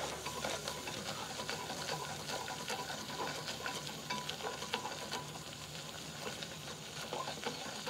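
Silicone whisk stirring a butter-and-flour roux in a stainless steel saucepan: rapid light ticks and scrapes of the wires against the pan over a soft sizzle of the cooking roux.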